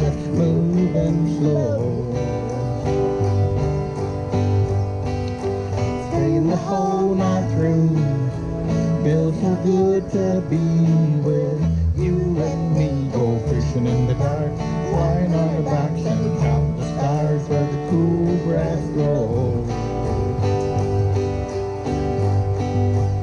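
Live acoustic country band playing an instrumental break: acoustic guitars with a steady bass and rhythm under a picked lead melody, no vocals.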